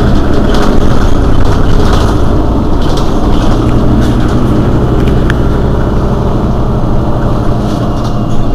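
Mercedes-Benz Citaro city bus's rear-mounted diesel engine idling at a stop: a loud, steady low rumble.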